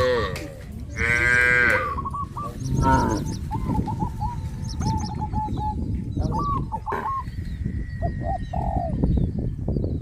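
Cattle mooing: a short call at the start, a loud moo about a second in, and another near three seconds, with small birds chirping through the middle over a steady low rumble.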